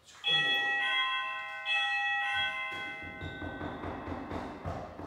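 Electronic doorbell chime ringing, several bell-like tones struck one after another, followed by a run of dull, irregular thuds.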